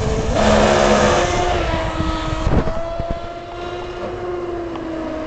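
Brushless electric motor of an RC mono-hull racing boat, run on a 4S LiPo, whining at speed. A loud rushing noise covers the first two seconds or so, then a steady whine that falls slightly in pitch.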